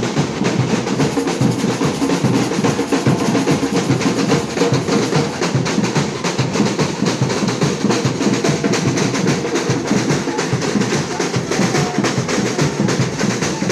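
Batucada samba percussion section playing a dense, fast, unbroken drum groove at an even loudness.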